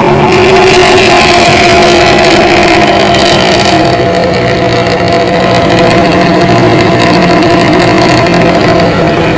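Intercity bus engine running steadily through a loud 'ngorok' (snoring) exhaust, a continuous drone with several held tones that eases a little about four seconds in.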